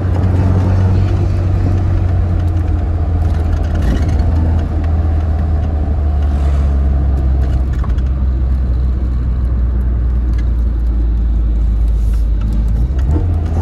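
Tofaş Şahin's engine and aftermarket exhaust running at fairly steady revs while driving, a loud low drone whose pitch shifts slightly near the end.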